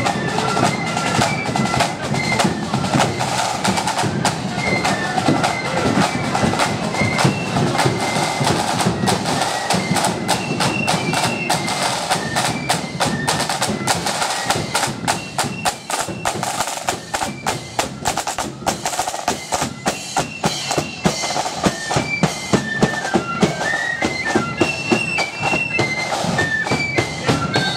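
Marching flute band playing: side drums beating a fast, dense rhythm under a high flute melody.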